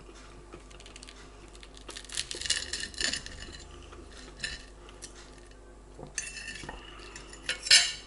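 Cutlery clinking and scraping against a plate in two spells of short clicks, about two to three seconds in and again from about six seconds, with the loudest clink near the end.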